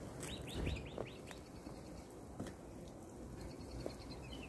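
A small bird calling: a quick run of about six short chirps in the first second or so, then fainter chirps near the end. A few soft clicks and a low thump come in between.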